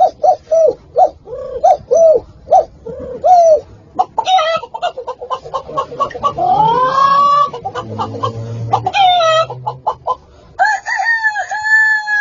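Chicken clucking and crowing calls: a quick run of short clucks, about three a second, then a mix of calls with a rising squawk, and a long drawn-out crow starting near the end.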